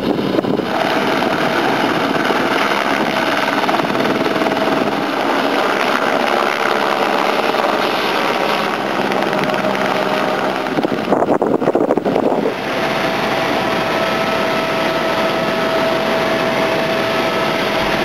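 Helicopter running: a steady rush of turbine and rotor noise with a thin steady whine, broken about eleven seconds in by a second or so of rough, uneven noise.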